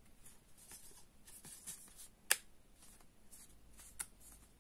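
Oracle cards being handled and laid down by hand: light rustling and sliding of stiff cardstock with a few sharp clicks, the loudest about two seconds in and another about four seconds in.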